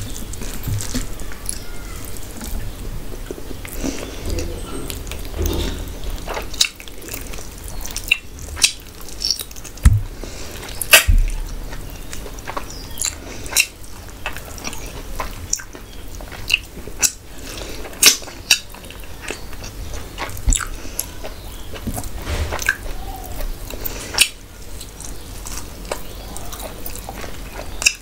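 Close-miked eating by hand: wet chewing and mouth smacking on rice and mutton curry, with many sharp irregular smacks. Two dull knocks sound about ten and eleven seconds in.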